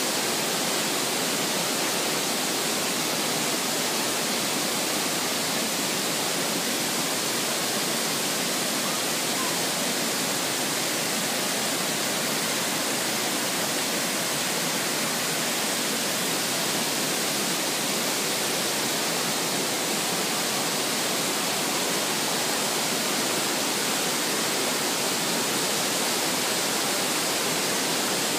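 Rain-swollen creek cascading over rocks at a waterfall: a steady, unbroken rush of white water.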